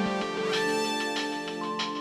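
Background music: plucked guitar-like notes over sustained tones.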